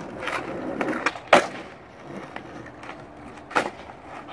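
Skateboard wheels rolling on concrete, with the board clacking sharply against the ground about a second in and again near the end.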